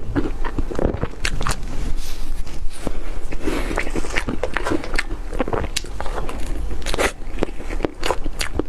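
Close-miked mouth sounds of someone eating cake: bites, chewing and moist smacking, with irregular sharp clicks.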